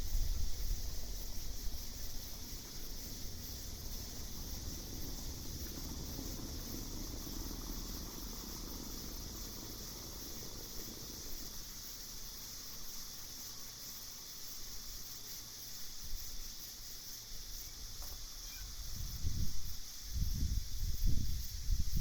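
Steady, unbroken high-pitched chorus of night insects. Low rumbling gusts come at the start and again near the end.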